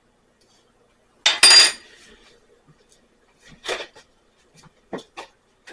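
Metal spoon clattering against a coffee cup: one loud ringing clatter about a second in, then a softer clink and a couple of small taps.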